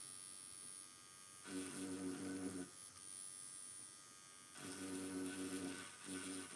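Small handheld electric tool with a motor, buzzing twice for about a second each, scraping away the solder mask to expose the copper on a circuit board's pads and traces.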